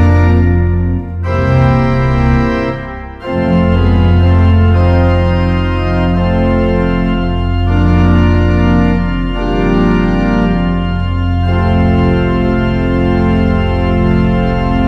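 Hauptwerk virtual pipe organ playing slow, sustained chords over a deep pedal bass, with short breaks between chords about one and three seconds in.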